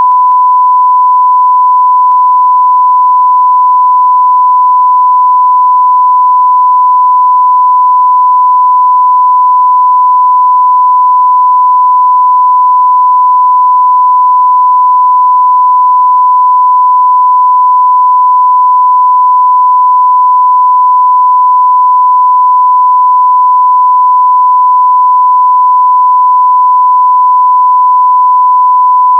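Loud, continuous electronic beep: one pure tone held at a single steady pitch without a break.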